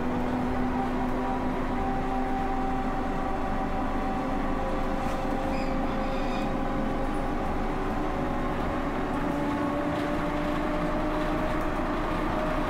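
Inside a Škoda 15Tr trolleybus under way: a steady ride noise with the electric traction drive's whine, several tones that slowly drift in pitch as the speed changes.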